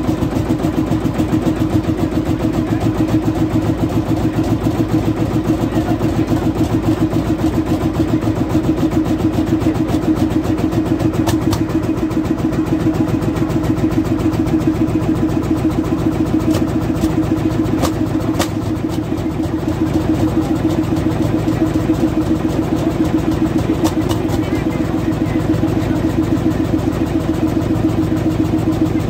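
Vintage tractor engine idling at a steady, even beat.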